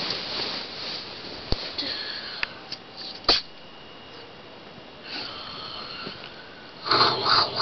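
A sleeping girl breathing noisily through her open mouth in wheezy snoring breaths, because flu keeps her from sleeping with her mouth closed. Two sharp clicks cut in, the louder one a little before halfway, and a voice starts near the end.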